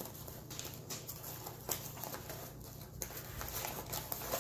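Fingers handling and picking at the paper of a gift-wrapped tube to open it: a few light, irregular taps and scratches.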